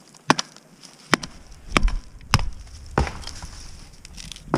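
Pallet wood being broken up for firewood: about six sharp blows on wood at uneven intervals.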